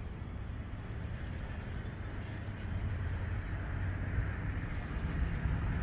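A small songbird singing a rapid, dry trill of high ticks, about two seconds long, twice, over a low steady background rumble.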